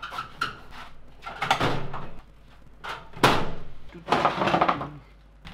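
Metal toolbox drawers sliding and shutting with a bump, three times, the loudest about three seconds in.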